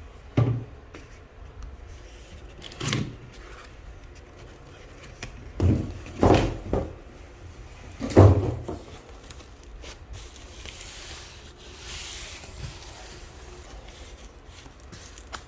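Packaging being handled during an unboxing: several dull knocks and thumps, the loudest about eight seconds in, then a soft rubbing, sliding sound of cardboard or foam.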